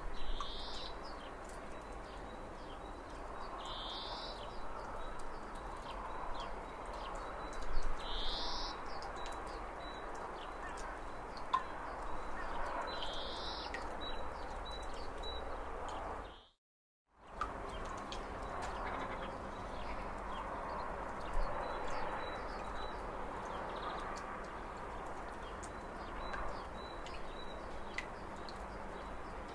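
A bird calling: a short rising call repeated four times, about four to five seconds apart, with faint high chirps in between, over steady outdoor background noise. The sound drops out completely for about half a second midway.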